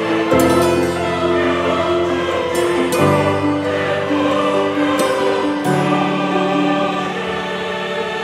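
Background music: sustained choir-like voices over held chords, the chords changing about every three seconds.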